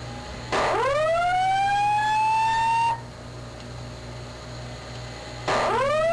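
Fire alarm evacuation tone: a whoop that sweeps upward in pitch for about two and a half seconds, then a second whoop starting near the end, over a low steady hum.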